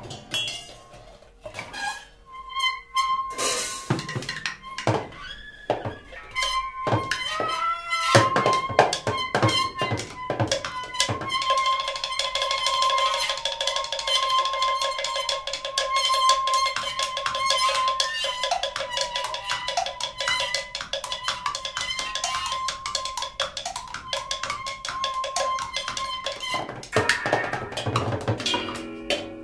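Free-improvised percussion duo: a dense, irregular patter of small clicks and strikes, sparse for the first few seconds and then thickening. About eleven seconds in, a high held tone joins the strikes and sustains until near the end.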